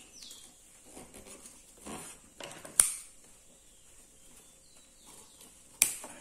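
Hands weaving a stiff rolled-paper strand through the spokes of a woven tray: soft rustling and scraping of the strands, with two sharp clicks, one about three seconds in and one near the end.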